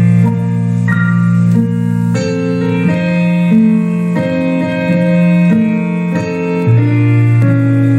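Keyboard with a piano sound playing a slow instrumental piece in held chords, changing about every second.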